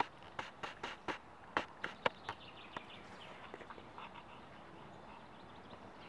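Footsteps crunching on dry leaves and twigs: a quick, irregular run of sharp crunches that stops about three seconds in. A few faint, high bird chirps follow.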